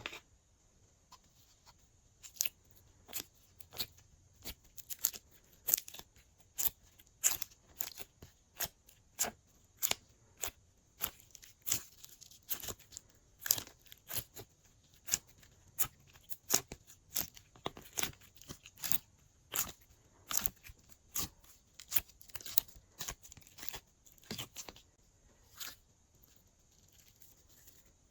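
Glossy slime being kneaded and stretched by hand, giving a long run of sharp clicking pops, about two a second.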